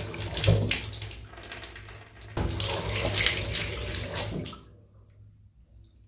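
Water running from a chrome bath mixer tap onto a hand, choppy and fluttery with air in the pipes. About four and a half seconds in, the tap is shut off and the flow stops cleanly: the cleaned cartridge no longer lets it run on.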